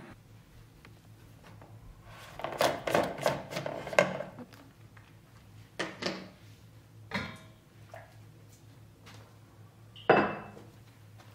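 Dishes and tea things being handled on a kitchen counter: a cluster of clinks and knocks about two to four seconds in, a few single knocks after, and one sharper clink with a short ring near the end.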